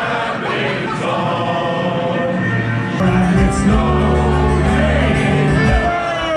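A crowd of people singing together, then from about three seconds in a live band plays: a male singer over electric bass and acoustic guitar.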